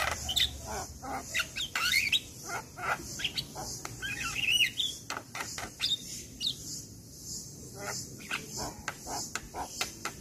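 Javan myna singing in a rapid run of short chattering notes, whistles and clicks, busiest in the first half and thinning out later. A steady high-pitched hum runs behind it.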